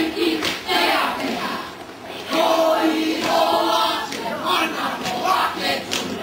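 A group of voices singing in unison, in phrases with several long held notes.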